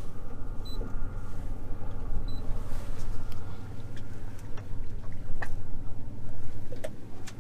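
Boat engine running steadily at low speed, a low rumble with a constant hum, and a few sharp knocks scattered through.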